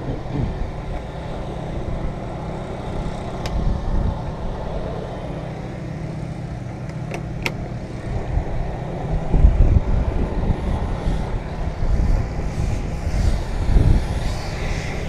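Steady low hum of a running vehicle engine or nearby traffic, with a few sharp clicks and some heavier low thumps partway through.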